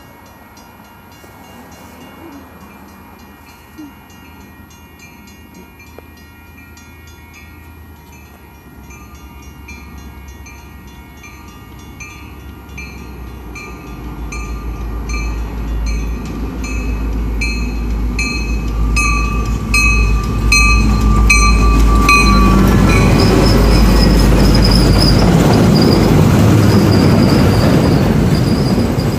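A train approaching and passing close by: its rumble builds from about halfway through and is loud through the last several seconds. There is a high squeal near the end.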